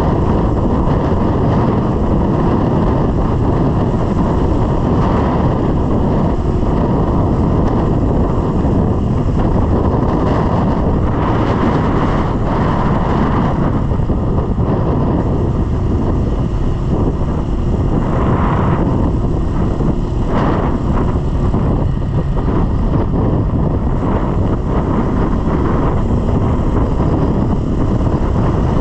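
Wind rushing over the microphone and a small Honda motorcycle engine running at steady road speed.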